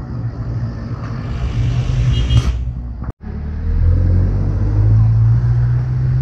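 Low, steady engine rumble of road traffic, with a brief hiss about two seconds in; the sound cuts out abruptly for an instant just after three seconds, then the rumble returns louder.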